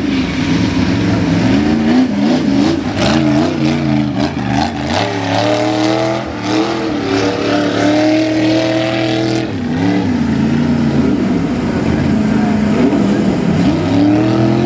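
Ford Bronco mega mud truck's V8 engine revving hard under throttle on a mud track, its pitch rising and falling again and again as the driver works the gas. The revs drop off about ten seconds in, then climb again near the end.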